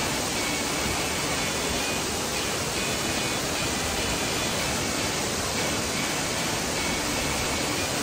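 Steady rushing of a curtain waterfall, water pouring in many streams down a cliff face.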